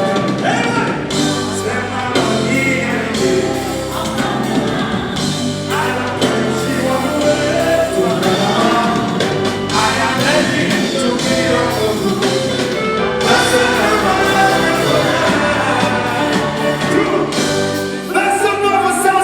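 Live concert music: a band playing with a singer's voice over it, loud and continuous.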